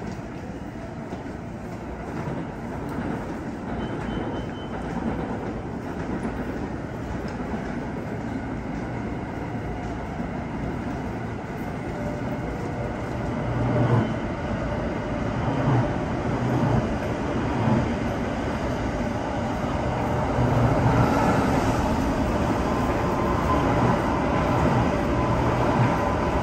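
Trains running past on the tracks below: a steady rail rumble with wheels clacking over the rail joints, growing louder from about halfway in as a long passenger train passes close by, with a second train coming through on the next track near the end.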